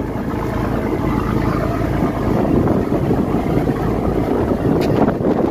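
Steady running noise of a boat under way, its engine drone mixed with water rushing past the hull, with wind buffeting the microphone.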